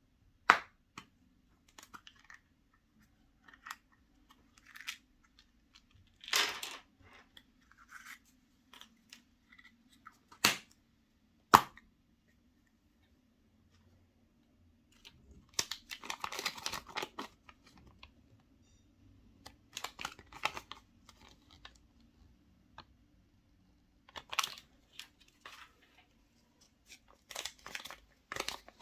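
Chocolate egg foil wrappers and toy packaging being torn and crinkled by hand in intermittent bursts, with three sharp clicks, two of them close together about ten seconds in, over a faint steady low hum.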